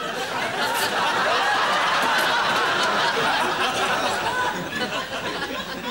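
A studio audience laughing: many voices at once in a loud, sustained laugh that eases off near the end.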